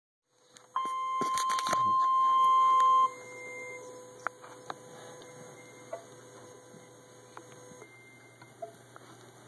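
A NOAA Weather Radio sounds its warning alert tone: a single loud, steady, high beep of about two seconds, cut short, with a burst of crackling near its start. It signals that a warning broadcast, here a severe thunderstorm warning, is about to be read. Afterwards come faint radio hiss and a few small clicks.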